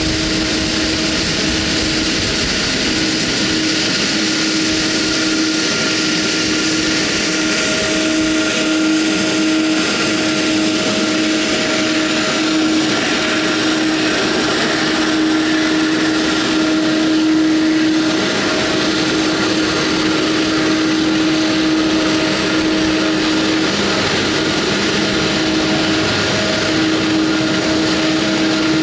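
Jet airliner's turbines running steadily at low power close by: a constant whine over a loud rushing noise, with no rise or fall.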